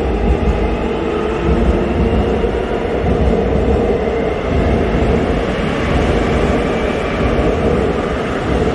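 Electric commuter subway train running past along the platform at close range: a steady loud rumble of wheels on rail with a humming tone over it.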